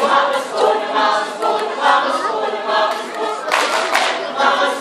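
Mixed choir singing, with a short noisy burst over the voices about three and a half seconds in.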